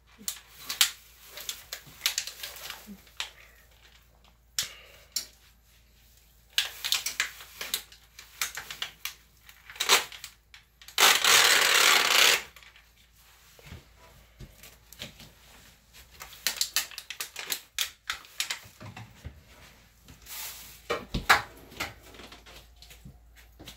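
Kitchen handling sounds: scattered clicks and knocks of dishes and utensils in irregular clusters, with one louder hiss of noise lasting about a second and a half near the middle.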